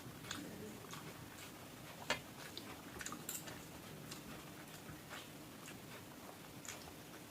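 A person eating rice and curry: soft mouth clicks and smacks while chewing, with one sharper click about two seconds in.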